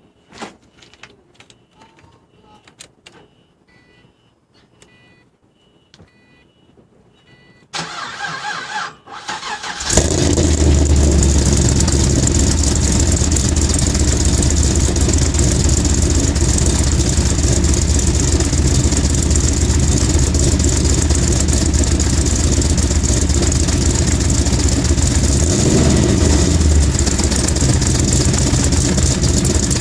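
Car engine cold start: a few quiet clicks and short beeps, then the starter cranks for about two seconds before the engine catches about ten seconds in and settles into a steady idle, which the owner reports misfiring on cold start. The note changes briefly a few seconds before the end.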